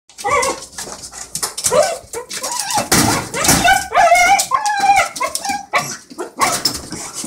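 Dogs giving excited greeting calls: a rapid run of high-pitched whines and yelps that rise and fall, mixed with short sharp barks.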